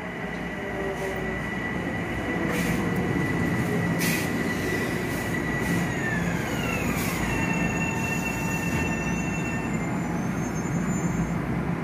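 Metro-North electric multiple-unit commuter train growing louder as it comes through, with a high steady whine that slides down in pitch about six seconds in, and a few sharp clicks.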